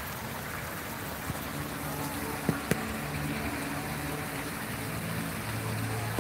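Poolside ambience: a steady rush of water with faint distant voices, and two sharp clicks close together about two and a half seconds in.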